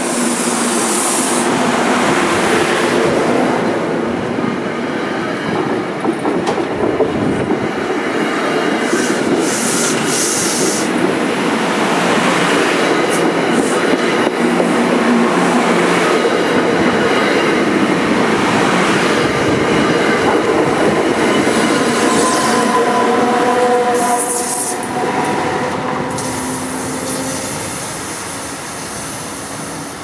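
NJ Transit commuter train of Comet passenger coaches rolling past close by on a curved platform track: a loud, continuous rumble and rattle of wheels over the rails. Thin wheel squeal rises on the curve later on, then the sound fades as the last cars move away.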